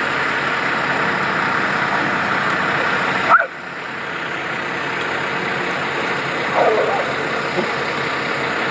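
Small toy helicopter's electric rotor whirring steadily. It cuts out abruptly about three and a half seconds in, just after a short rising squeal, then a fainter whir slowly builds back up.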